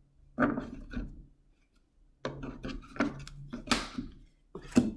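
A deck of tarot and oracle cards handled on a wooden table. There is a soft slap about half a second in. After a short pause comes a run of papery rustles and taps, with one brief swish, and a sharp tap near the end.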